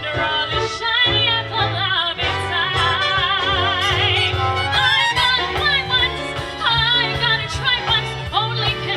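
A woman singing a Broadway show tune in a big, belted voice, holding long notes with a wide vibrato over instrumental accompaniment.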